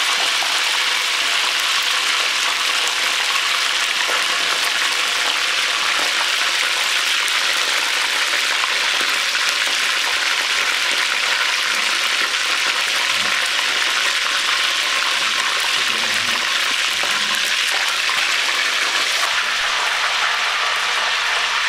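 Whole chicken deep-frying in hot oil in an aluminium pot: a steady sizzling hiss.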